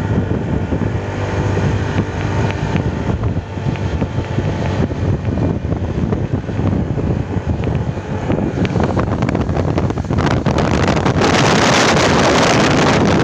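Motorcycle engine running steadily at cruising speed, with strong wind noise on the microphone from riding; the wind noise grows louder and covers the engine about ten seconds in.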